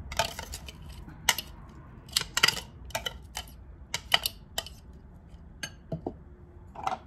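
Metal fork scraping and tapping against glass bowls as chopped celery and onion are scooped out, making a dozen or so irregular sharp clinks.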